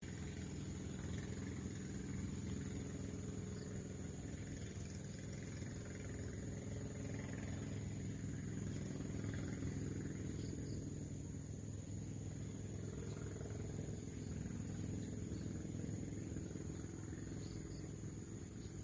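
Steady outdoor ambience: a constant low rumble with a thin, steady high-pitched tone above it and no distinct events.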